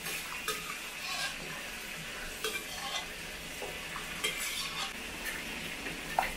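Metal ladle scraping thick chilli crab sauce around a stainless steel wok and clinking against the wok and the steel pot of crabs, in irregular scrapes over a steady sizzling hiss from the hot pan; a sharper clink near the end.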